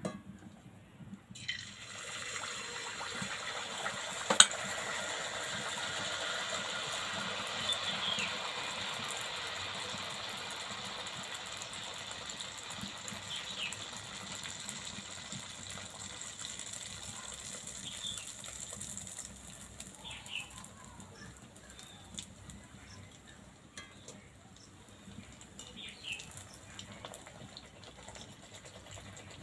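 Pitha batter sizzling in hot oil in a wok, starting suddenly about a second and a half in as the batter goes into the oil, then slowly dying down as it fries. A single sharp click about four seconds in.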